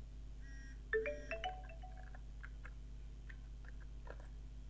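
Short marimba-like notification tone of a few rising notes about a second in, typical of a phone message alert as the one-time payment code arrives. Then a few faint clicks as the code is typed in.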